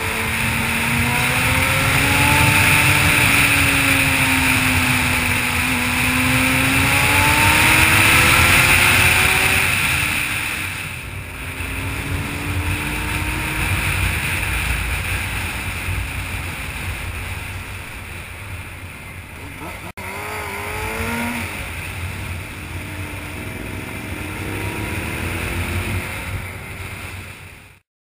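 1994 Honda CBR600F2's inline-four engine running under way, its pitch rising and falling as the rider works the throttle through the bends, with heavy wind noise over the camera microphone. A sharp click about two-thirds of the way through is followed by the engine revving up, and the sound cuts off abruptly just before the end.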